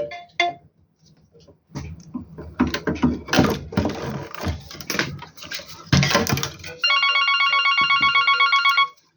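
An electronic telephone ring, a rapid trilling tone, sounds loudly for about two seconds near the end and cuts off abruptly. Before it there is busier, rhythmic background sound.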